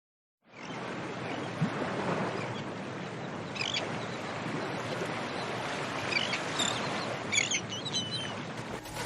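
Surf washing steadily on a shore, with a handful of short, high seagull calls in the background. The surf starts about half a second in.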